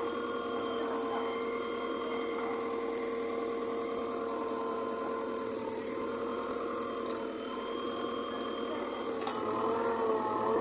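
JCB backhoe loader's diesel engine running steadily, its pitch wavering near the end as the load changes.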